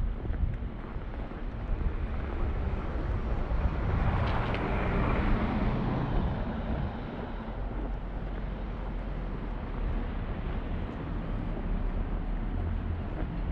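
A car passing on a snowy street, its tyre hiss swelling and fading about four to six seconds in, over a steady low rumble of traffic and wind.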